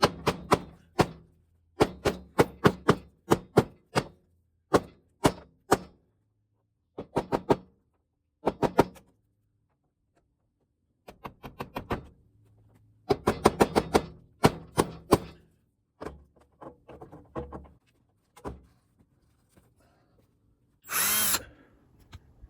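Tool work on the truck's metal: bursts of quick, sharp knocks, several a second, broken by short pauses. Near the end there is a louder rush of noise lasting about a second.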